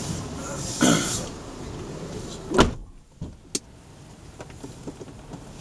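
A car door slamming shut with one heavy thud about two and a half seconds in, after which the street noise drops away as the cabin is closed. A short rush of noise comes about a second in, and a small click follows the thud.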